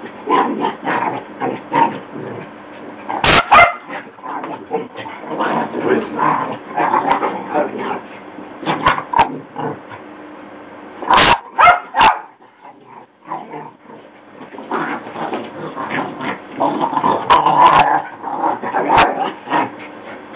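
Jack Russell terriers and a Border Collie growling and barking in rough play, tugging at a stuffed toy, with a few sharp knocks. There is a short lull about twelve seconds in.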